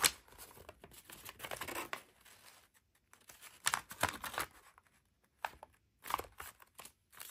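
Origami paper crinkling and rustling as it is folded and creased by hand, in scattered short crackles with brief pauses between.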